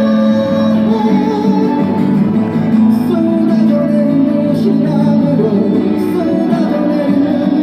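Live acoustic guitar music with a singing voice carrying a melody over held chords.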